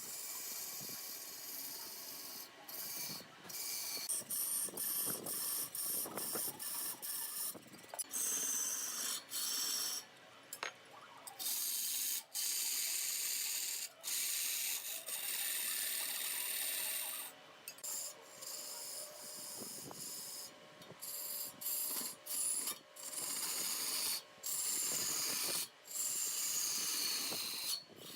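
A tool cutting and scraping wood: a hissing, rasping noise in short stretches that start and stop abruptly.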